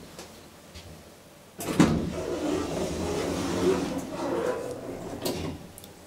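Passenger lift doors opening: a loud clunk about two seconds in, then several seconds of uneven rattling and sliding from the door mechanism.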